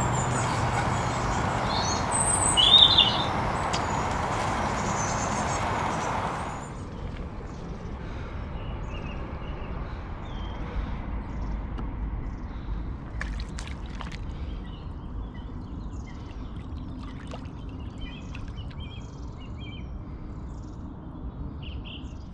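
Small birds chirping over a steady background noise that cuts off abruptly about a third of the way through, leaving a quieter outdoor ambience with scattered chirps and a few faint clicks.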